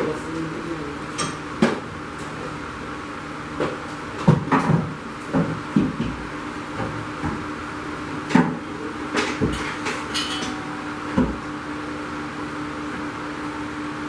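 Irregular knocks and clunks of a steel bolt-in roll cage being unbolted and handled inside a car, thickest about four to five seconds in and again around eight to eleven seconds, over a steady low hum.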